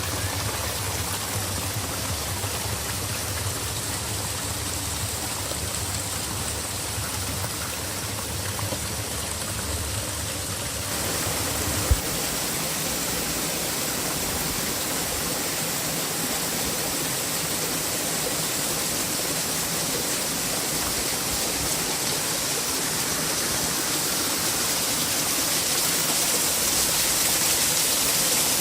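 Steady rush of flowing water. About twelve seconds in there is a single sharp click, a low hum drops away, and the water grows gradually louder toward the end.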